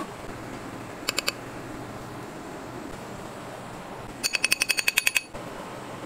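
Electronic beeper sounding in quick, high-pitched beeps: three about a second in, then a rapid run of about a dozen about four seconds in, over a steady background hum.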